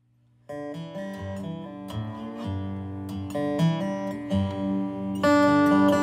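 Resonator guitar played lap-style with a steel bar, its picked notes starting about half a second in and getting louder around five seconds in.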